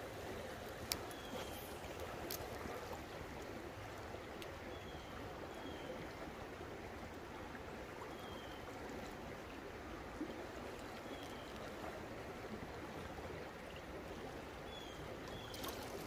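Shallow creek water running over rocks in a riffle: a steady, even rushing. A few faint short high chirps sound now and then on top.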